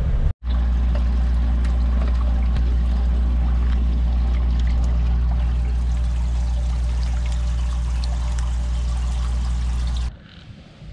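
Aerated bait tank running: steady bubbling, pouring water over a low, even electric hum from its pump. It cuts off abruptly about ten seconds in.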